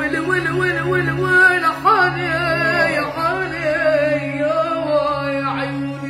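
A boy singing a strongly voiced, ornamented Arabic vocal line with violin accompaniment. About three seconds in the voice stops and the violin plays on alone over a steady low drone.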